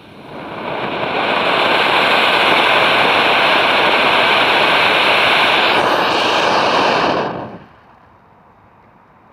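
Spray firework fountain jetting sparks with a loud, steady hiss. The hiss builds over the first second or so and dies away about seven and a half seconds in as the firework burns out.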